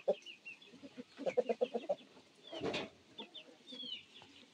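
Chickens clucking in short runs, with a quick series of clucks about a second in and one louder, harsher call a little past halfway. Small birds chirp over them with high sliding notes near the end.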